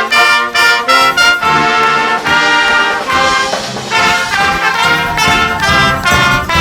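High school marching band playing: trumpets and trombones sounding held and moving notes in loud ensemble, with drums.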